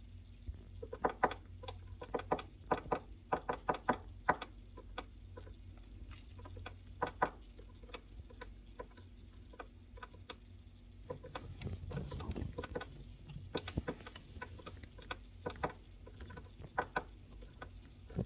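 Irregular knocking and tapping from inside a couch, in quick clusters of several knocks a second with pauses between. A short stretch of scuffling rustle comes just before the middle.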